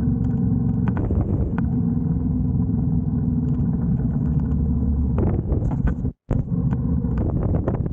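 Moto Guzzi V85TT's air-cooled V-twin running under way on rough ground, with irregular knocks and clatter from stones and ruts that grow denser after about five seconds. The sound cuts out for a split second just past six seconds in.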